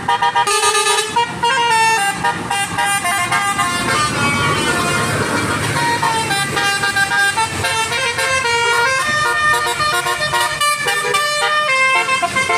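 Telolet basuri musical bus horns: a set of tuned air horns on a tour bus playing a quick, stepping melody, note after note, loud.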